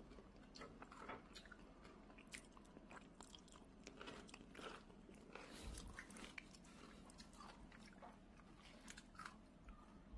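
A cat biting and chewing fresh lettuce leaves: faint, irregular crunches.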